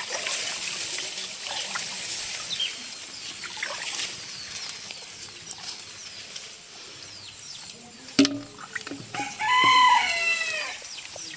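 A rooster crows once near the end, a rising-then-falling call lasting about a second and a half, over a steady hiss of water, with a single sharp knock just before it.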